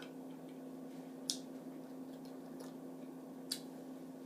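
Close-miked eating of a mussel: a few sharp, short mouth clicks while chewing, two of them louder, about a second in and near the end, over a steady low hum.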